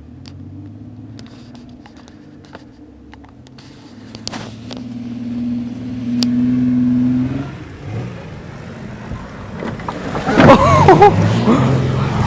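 Van engine revving hard under load as it charges up a dirt hill. It holds a high, steady pitch for a few seconds, then drops off about halfway through. Near the end comes a louder, rougher stretch of wavering engine and tyre noise.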